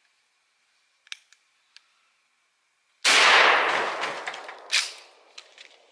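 Pump-action shotgun firing one round of number 7 birdshot: a loud blast about three seconds in that rings on and fades over a second or so. About a second and a half after the blast comes a sharp clack.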